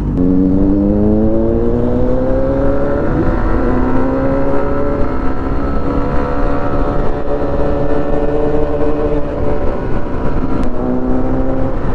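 Small 110cc single-cylinder commuter motorcycle engine pulling away and cruising, its pitch climbing over the first few seconds, holding steady, then dipping briefly near the end before picking up again. Wind rumble on the helmet-mounted microphone runs underneath.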